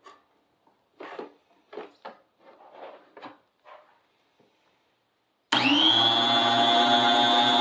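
Faint handling noises, then about five and a half seconds in the electric motor and spinning blade of a Cabela's 7.5-inch heavy-duty food slicer switch on suddenly and run steadily with a low hum and a high whine.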